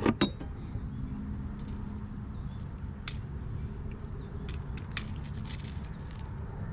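Wind rumbling on the microphone, with a sharp knock at the start and a few light clicks and rattles, about three and five seconds in.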